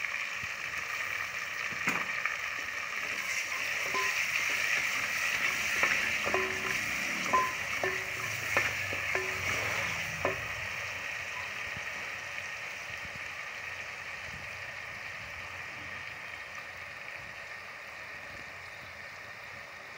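Sliced onions and tomatoes sizzling in hot oil in a pot. A spoon stirs them, knocking and scraping against the pot a number of times between about two and ten seconds in. After that the stirring stops and the sizzle slowly fades.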